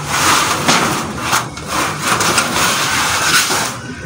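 Rusty corrugated iron roof sheeting scraping and grating as it is dragged and pulled off the roof, in several long rasping strokes that stop just before the end.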